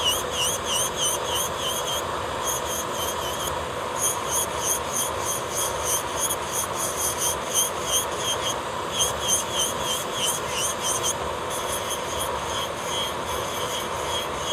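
Electric nail drill (e-file) grinding down a thick layer of gel on a fingernail: a steady motor whine under a gritty hiss, with bursts of quick high chirps, about four a second.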